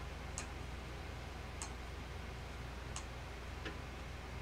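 Phoropter sphere wheel clicking through its detents as it is turned step by step, adding plus power to blur the patient's eye. There are about four clicks, a little over a second apart.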